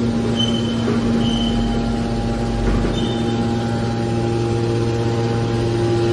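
Hydraulic scrap aluminium can baler running with a loud, steady hum, with a few short high squeaks in the first three seconds.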